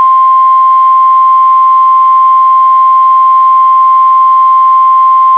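NOAA Weather Radio 1050 Hz warning alarm tone: one loud, steady, unbroken beep. It is the alert that a warning message is about to be read.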